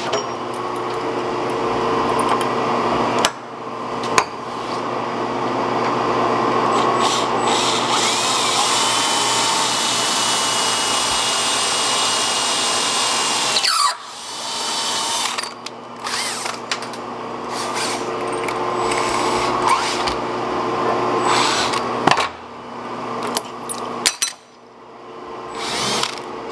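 Power drill running as it bores a hole through a metal stamp blank and countersinks it. The motor's steady hum breaks briefly twice early on, stops about 14 seconds in, then runs in shorter on-off stretches.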